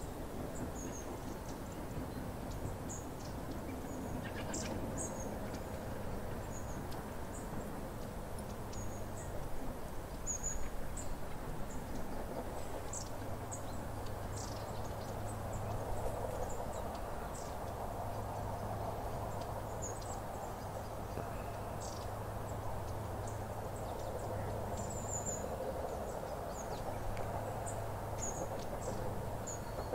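Long-tailed tits giving brief, thin, high-pitched calls at irregular intervals, over a steady low rumble of background noise.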